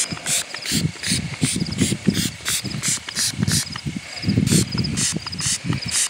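Small finger-pump spray bottle misting a burlap ghillie suit in quick repeated spritzes, about three a second, with the rustle of the burlap being handled.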